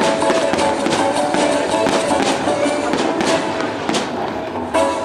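Fireworks display set to music: a music track plays while firework shells go off in quick succession with crackling, including a couple of sharper bangs in the last second or so.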